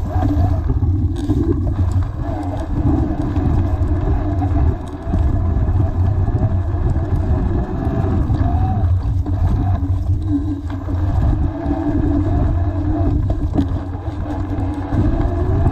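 Hardtail mountain bike rolling fast over dirt singletrack, heard from a camera mounted on the bike: a steady low rumble with constant small rattles and knocks and a wavering hum.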